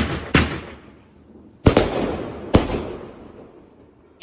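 Fireworks exploding in the air: four sharp bangs, two close together at the start and two more a little over a second and a half in and about a second later. Each one fades away slowly.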